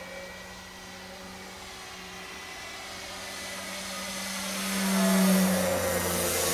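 Electric motor and propeller of a 65-inch U Can Do 3D RC plane running a 6S battery, a steady drone growing louder as the plane comes in and passes close overhead about five seconds in, the pitch dropping slightly as it goes by.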